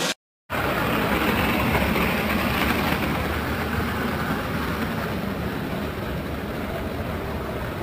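A box truck driving along with skateboarders towed behind it, its engine and the skateboards' wheels rolling on asphalt making a steady rumble. The sound cuts out briefly just after the start.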